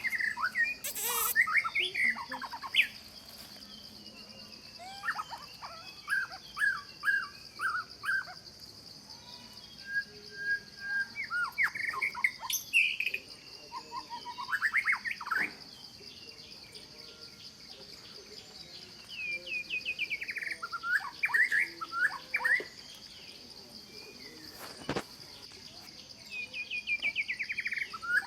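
Birds calling in repeated bouts of quick chirping notes, over a steady high-pitched insect drone of cicadas or crickets.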